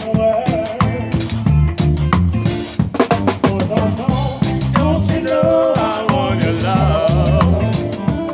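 Live band playing an upbeat Jamaican ska/reggae groove, with a drum kit keeping time over a bass line and a melodic lead line.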